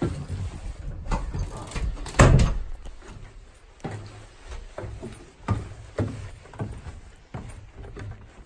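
A door is handled, with a loud thump about two seconds in. Then come footsteps going down wooden stairs, roughly two steps a second.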